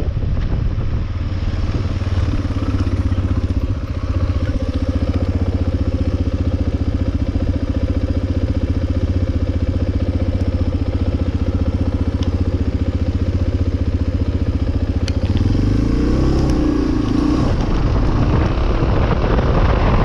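Suzuki Djebel 250XC's single-cylinder four-stroke engine idling steadily, then revving up as the bike pulls away about three-quarters of the way in, its pitch rising and then dropping back.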